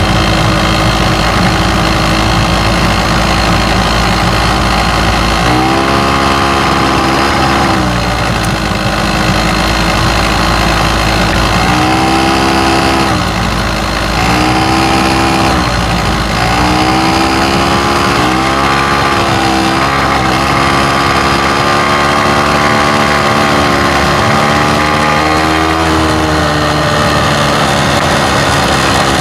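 Honda Leader AF03 scooter's small two-stroke engine running, with the throttle blipped repeatedly from about six seconds in: the pitch rises and falls several times between stretches of idle.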